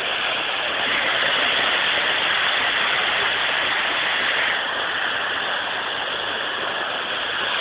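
Dolo waterfall's water rushing steadily, an even roar of falling water.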